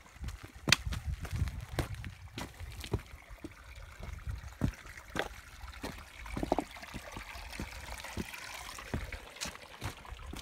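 A thin trickle of water among the stones of a nearly dry rocky creek bed, with irregular sharp clicks and knocks of footsteps on loose rock.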